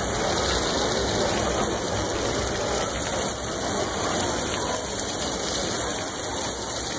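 Fountain water splashing steadily into its stone basin.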